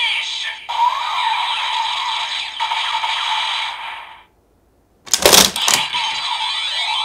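DX Revice Driver belt toy's small speaker playing its tinny finisher sound effects and music, cutting off about four seconds in. About a second later comes a quick run of loud plastic clacks as the Giffard Rex Vistamp is worked in the driver, and the toy's sound starts again.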